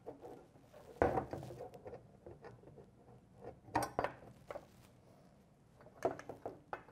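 Light metallic clinks and knocks of a steel turn-signal bracket and its small bolt and nut being handled and fastened to a license plate bracket: a few separate taps, the loudest about a second in and just before four seconds.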